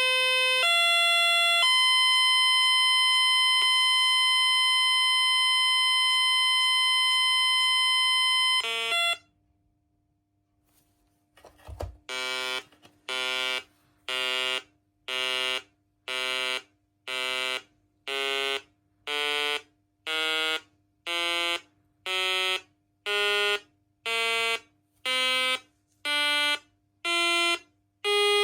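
Menvier TS510 alarm panel sounding through its 16-ohm extension speaker. A few stepped tones give way to a steady electronic tone that cuts off after about seven seconds. After a few seconds' silence and a click, a pulsed tone beeps about once a second.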